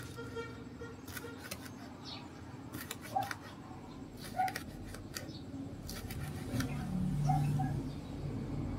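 Kitchen knife slicing a red pepper into strips on a plastic cutting board: a series of irregular short cuts and taps of the blade against the board.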